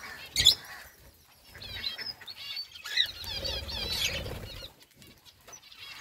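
A flock of budgerigars chattering in rapid, warbling chirps, with wings flapping and a sharp thump about half a second in.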